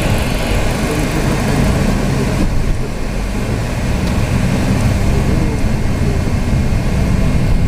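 Steady low rumble of a car's engine and tyre noise, heard from inside the cabin while driving on a motorway.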